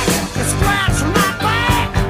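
Rock music with a steady beat and a singing voice.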